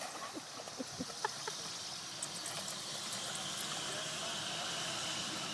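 Faint small water splashes and gurgles from a dog swimming in the first second or so, then a steady outdoor hiss.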